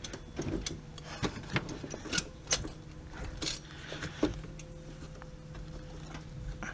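Hands fitting a wastegate actuator rod onto a turbocharger's wastegate arm: scattered small metal clicks and clinks, with a steady low hum underneath.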